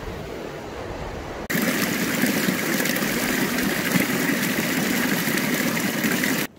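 A low steady rumble, then from about a second and a half in the close-up rushing and splashing of a small cascade of a mountain stream falling over rock, steady until it cuts off abruptly near the end.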